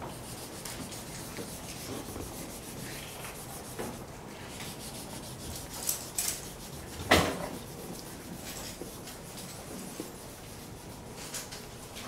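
Scratchy rubbing of colouring on paper at a table, with a short knock about seven seconds in and a smaller one just before it.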